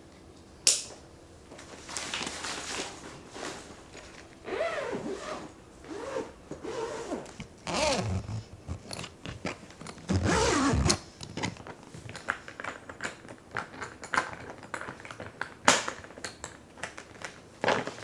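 Hands unpacking items by hand: packaging crinkling and rustling, with scrapes, squeaky rubbing and a few sharp clicks.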